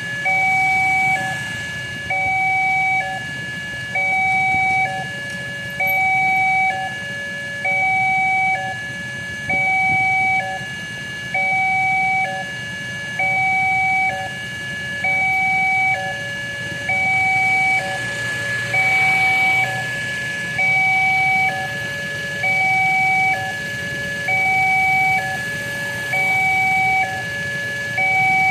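Railway level-crossing warning alarm sounding a two-tone electronic chime, alternating a higher and a lower tone about once a second, which warns that a train is coming. A low engine rumble from waiting traffic runs beneath.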